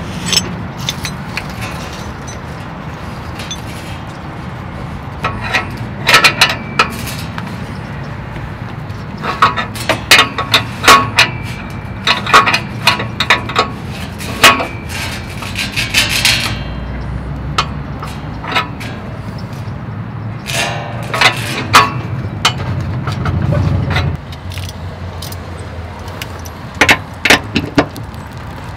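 Metal hand tools clinking, clicking and scraping in short clusters as a wrench works on the exhaust oxygen sensor, over a steady low hum.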